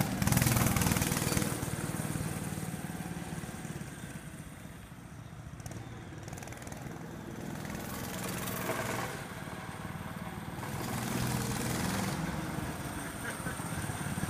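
Minibike's small engine running as it pulls away, fading to faint around five seconds in, then growing louder again as the bike comes back.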